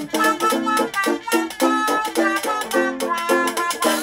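Live acoustic band music: a small trumpet plays a melody, with a hand cupped over its bell, over rhythmic strummed guitar chords.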